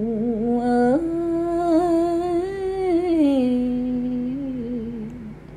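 One voice chanting a Vietnamese poem, holding a single drawn-out sung vowel. It steps up in pitch about a second in, sinks back lower past the middle, and fades out near the end.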